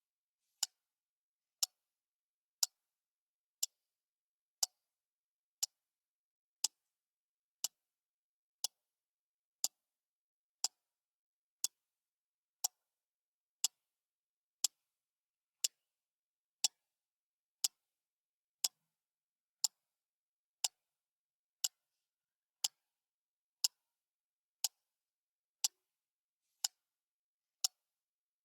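Clock ticking steadily, one sharp, dry tick each second with silence between the ticks.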